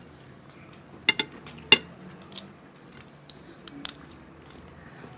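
Stainless-steel plates clinking and knocking as rice and curry are mixed by hand on them: about half a dozen short, sharp clinks, the loudest in the first two seconds.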